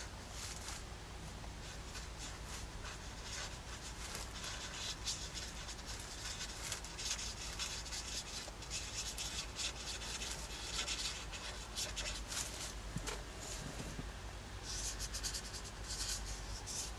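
A brush-tip watercolour marker rubbing and scratching over sketchbook paper in many short, repeated strokes, a faint scratchy hiss.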